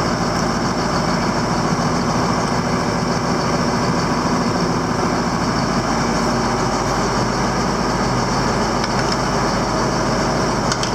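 Farm machinery engine idling steadily at an even pitch, with no revving or change.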